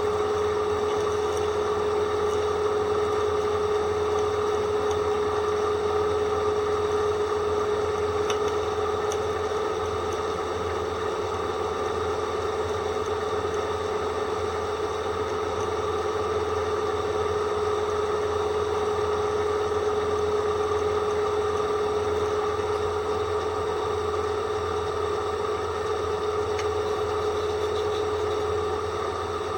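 Electric drill running with a dull bit, giving a steady, unbroken whistle with higher overtones that holds one pitch throughout. The whistle is the sign that the bit is dull.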